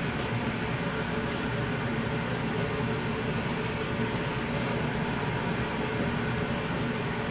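Steady low hum and hiss of machine-like background noise, like a fan or air conditioning, with a few faint, brief rustles of shoelaces being pulled and tied.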